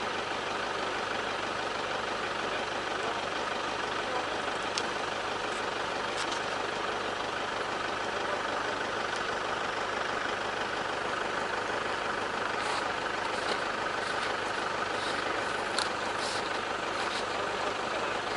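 Steady hum and hiss of an idling vehicle engine, with a few faint clicks scattered through the second half.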